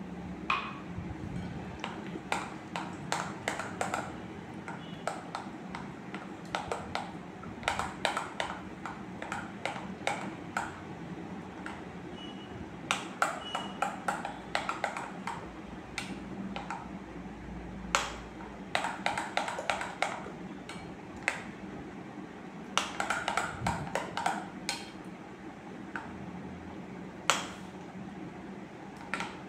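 Steel spoon beating thick flour batter in a glass bowl, clinking against the glass in irregular runs of quick ticks.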